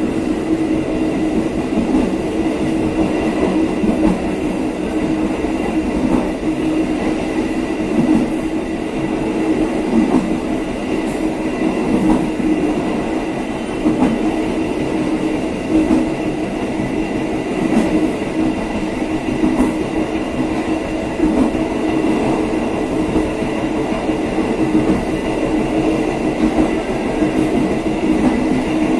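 A train running steadily along the track: a continuous rolling rumble with a steady hum, swelling in a regular beat about every two seconds.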